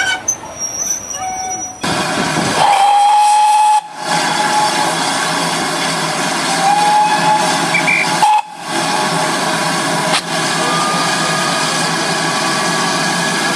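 GWR 2884 class steam locomotive blowing off steam from its safety valves: a loud, steady hiss that starts suddenly about two seconds in and keeps on, dipping briefly twice. A short steady tone sounds over the hiss about a second after it starts.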